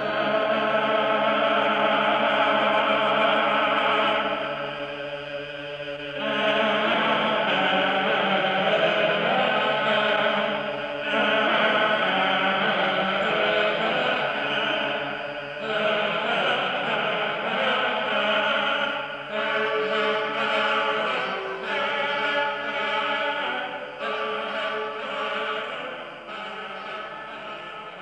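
Choral music in a chant-like style: voices singing long held chords that change every few seconds, fading toward the end.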